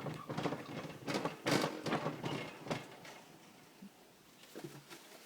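Irregular rustling and crackling noises for about three seconds, loudest midway, then dying down to a few faint scattered ticks.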